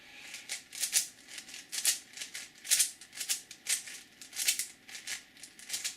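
A plastic 5x5x5 Rubik's cube being twisted by hand: an uneven run of clicking, rattling layer turns, about two a second. The turns are an edge-parity algorithm being carried out on the last edge.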